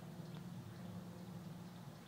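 Faint, steady low drone of a jet aircraft flying high overhead.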